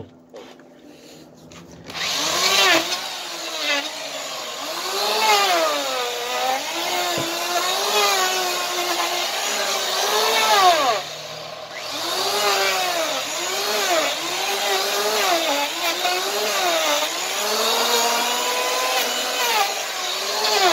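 Corded electric hand planer trimming an overgrown draft horse hoof. The motor starts about two seconds in, and its pitch dips and recovers with each pass as the blades bite into the hoof. There is a short break about eleven seconds in.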